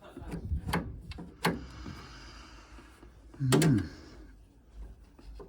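Sharp clicks and knocks of boiler parts and tools being handled, a short hiss, and a louder scraping clunk about three and a half seconds in.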